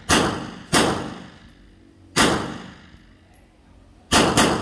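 Gunshots from a CZ Scorpion EVO 9mm: three single shots spaced about a second apart, then three fired in quick succession near the end, each followed by a short echo that dies away.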